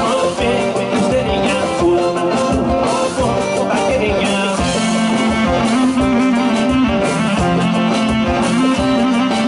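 Live band playing dance music: drum kit keeping a steady beat under a plucked-string melody.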